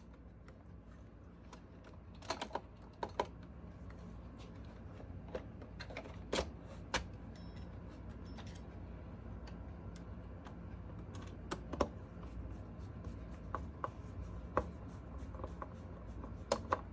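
Irregular clicks and taps of hard plastic parts and a screwdriver being handled as a Roomba J7 robot vacuum is put back together, with a few louder knocks scattered through. A low steady hum runs underneath.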